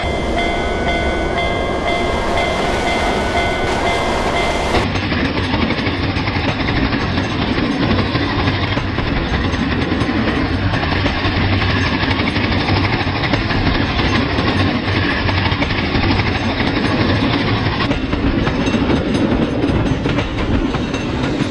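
A train passing at speed, with a continuous rumble and rattle of wheels and cars. For the first five seconds it is joined by several held tones, which cut off together.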